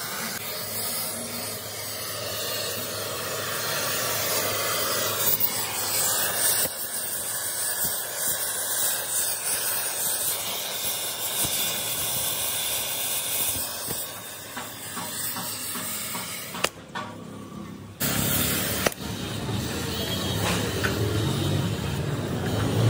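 Gas torch flame hissing steadily as it heats the trunnion boss of a tractor differential housing to free it. The hiss drops away briefly about three-quarters of the way through.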